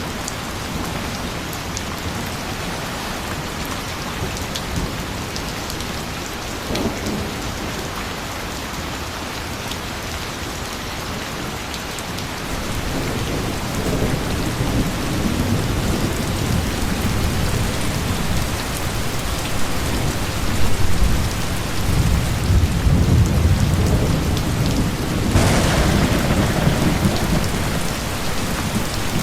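Steady rain falling, with low thunder rumbling in about halfway through and growing heavier toward the end.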